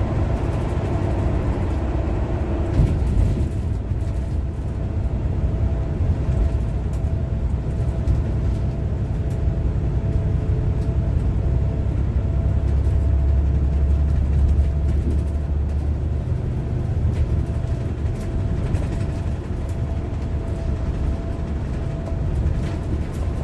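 A bus driving, heard from inside: a steady low engine and road rumble with a faint steady whine above it, swelling for a couple of seconds about halfway through.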